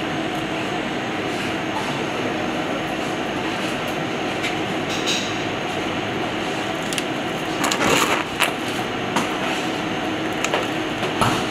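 Steady, loud rushing background noise of a commercial kitchen, with short crinkles of cling film being handled around a pastry-wrapped roll about eight seconds in and again near the end.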